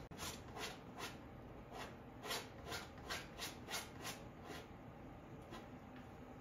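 Palette knife scraping paint onto a canvas in a run of about a dozen short scrapes, coming quicker between two and four seconds in, with one more near the end.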